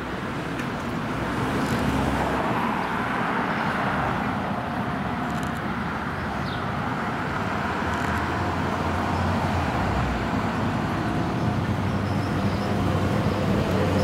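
Road traffic: steady car engine and tyre noise that swells about two seconds in and again near the end.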